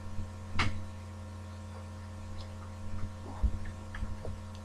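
Steady electrical mains hum, with a sharp click about half a second in and a few soft knocks later on.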